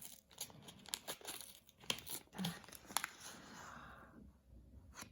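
Soap packaging being handled: soft crinkling and rustling with scattered small clicks, dying away about four seconds in, with one more click near the end.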